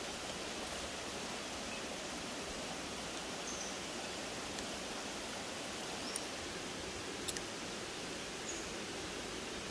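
Steady rush of a small forest stream, with a few light clinks of teaspoons against tea glasses about six and seven seconds in.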